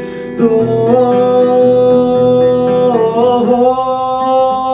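Song with acoustic guitar and a male voice holding one long sung note, which bends in pitch about three seconds in.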